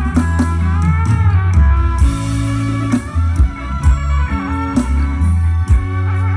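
Recorded music with electric guitar, drums and heavy bass, played loud through a large outdoor PA sound system under test; the bass notes dominate, with sharp drum hits about every second and bending guitar notes.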